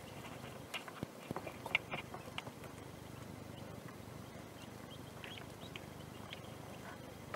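Quail chicks hatching inside their eggs: scattered faint short peeps and light taps of pecking at the shells. The taps are bunched in the first couple of seconds.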